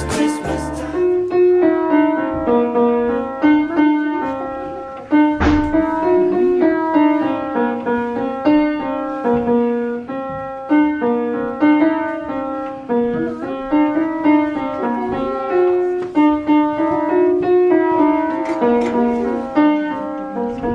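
Antique square piano being played by hand: a steady run of melody notes and chords, each note struck and then fading.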